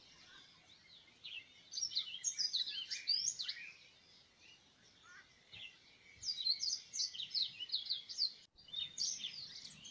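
Small birds chirping: quick high chirps in two busy spells, with a quieter stretch in the middle.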